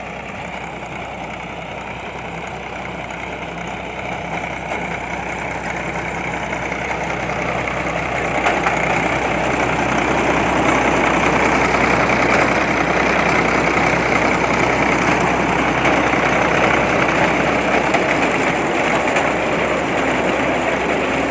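Truck-mounted borewell drilling rig's engine running steadily, getting louder and rougher about eight seconds in and holding there.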